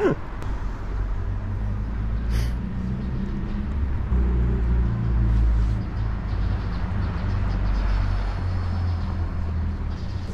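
Low, steady rumble of a vehicle engine running, with faint street noise above it.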